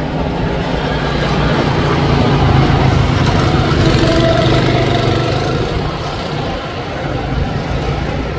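A motor running with a steady low hum that swells for a few seconds and then eases off.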